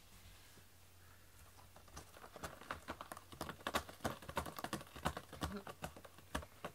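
A cat clawing at a worn, shredded corrugated-cardboard scratching pad. A quick irregular run of scratching and scraping strokes starts about two seconds in.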